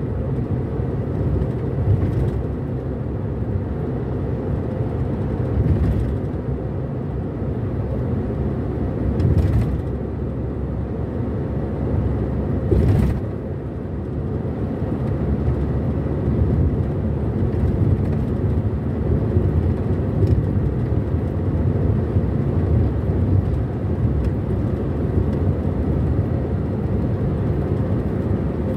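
Steady low rumble of a moving car heard from inside the cabin, road and engine noise blended, with a few brief knocks along the way.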